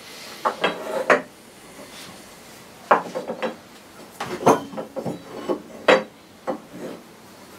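Steel tubes, wooden blocks and an iron holdfast being handled and set down on a wooden workbench: an irregular string of metallic clinks and hollow wooden knocks, loudest about three seconds in and again near six seconds.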